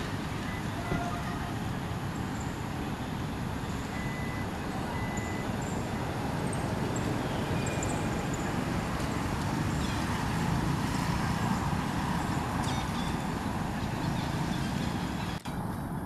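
Steady background road-traffic noise, with a vehicle passing a little louder about ten seconds in.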